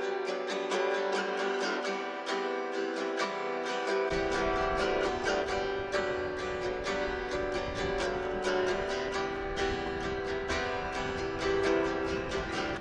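Background music led by a strummed acoustic guitar, with the low end coming in about four seconds in.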